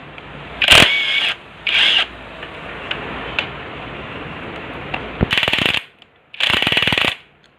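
Hand ratchet wrench clicking in four short bursts, spaced a second to three seconds apart, as bolts on a motorcycle's gear lever and clutch side are loosened.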